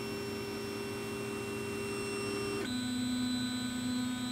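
Anet ET4+ 3D printer's stepper motors whining at a steady pitch as the print head homes down toward the heated bed. About two and a half seconds in, the whine switches abruptly to a lower pitch as the motion changes speed.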